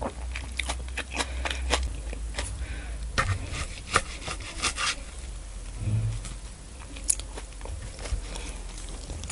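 Wet clicks and taps of a knife cutting through a slab of cream-sauced salmon on a wooden board while a gloved hand holds and lifts the pieces. The clicks come thickest in the first half and thin out later.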